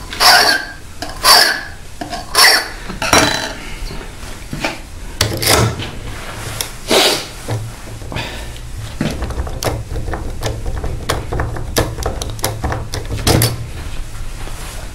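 Hand file rasping across a key blank in about six strokes, then a run of quick, light metallic clicks as the blank is wiggled in an Asec euro profile cylinder lock to raise impression marks.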